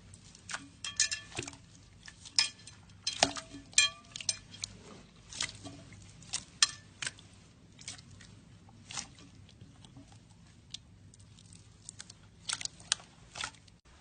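Jiggly water slime being squished and poked by hand: irregular wet clicks and pops, some with a brief ringing tone, coming in uneven clusters.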